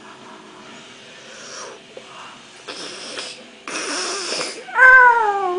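A person making vocal sound effects: two raspy, hissing breaths, then a loud whining cry near the end that rises briefly and then falls in pitch.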